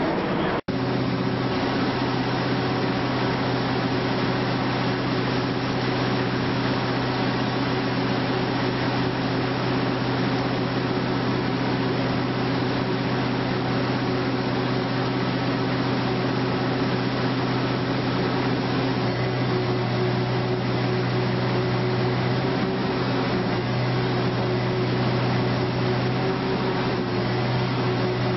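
Steady low electrical hum with hiss, unchanging throughout, after a brief dropout about half a second in.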